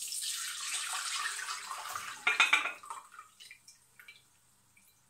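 White vinegar steeped with lemon rinds poured out of a clip-top glass jar into another container: a steady splashing pour that glugs for about half a second just past two seconds in, then dwindles and stops about three seconds in.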